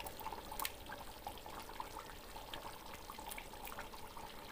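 Chicken curry simmering in a large aluminium pot: a soft liquid bubbling with scattered small pops, and a sharper click about half a second in as ground coconut paste is added with a wooden ladle.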